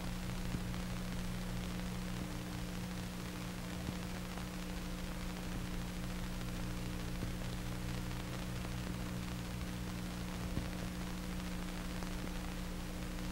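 Steady hiss with a low electrical hum under it and a few faint clicks, the noise of an old film soundtrack with no programme on it.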